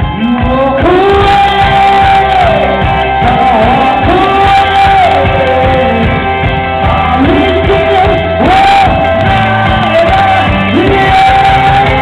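Live rock band playing: a male singer belts long held notes, sliding up into several of them, over electric guitar, bass and drums.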